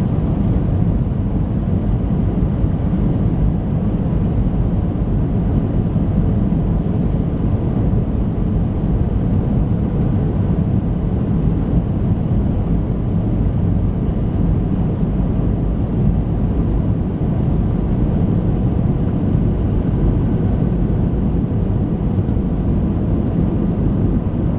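Steady cabin roar of an Airbus A320 airliner on final approach, engine and airflow noise heard from inside the passenger cabin, even and unchanging.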